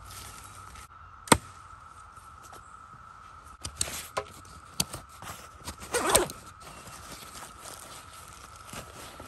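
Hands handling a fabric backpack: a sharp click about a second in, then rustling and a zipper being worked, loudest about six seconds in, over a faint steady tone.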